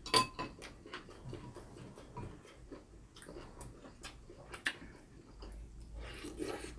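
Eating at a table: scattered light clicks of a metal spoon and chopsticks against ceramic bowls, with quiet chewing; the sharpest click comes right at the start.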